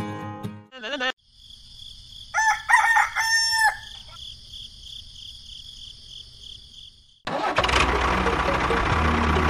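A rooster crows once over a steady high buzz. About seven seconds in, a loud engine-like machine noise starts suddenly and keeps running.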